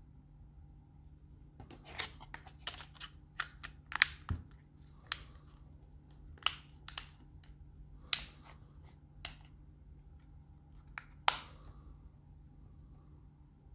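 Smartphone back cover being pressed onto the phone, its plastic clips snapping into place one after another as it is fitted around the edges. About twenty sharp, irregular clicks over roughly ten seconds, with one of the loudest near the end as the last clip seats.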